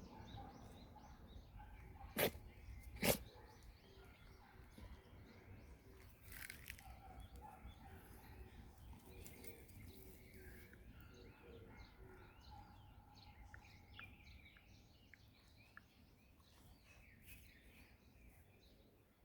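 A mixed-breed dog sneezes twice, two sharp short bursts about a second apart, a couple of seconds in. Faint bird chirps continue over a low outdoor rumble.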